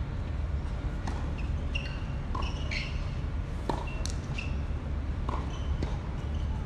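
Scattered sharp knocks of a tennis ball bouncing and being struck on a hard court, with a few short high chirps in between, over a steady low rumble.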